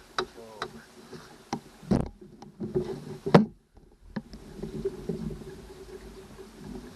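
Johnson 90 hp V4 two-stroke outboard being cranked by its electric starter without catching: a few clicks and two loud knocks, then a steady cranking hum from about the middle on.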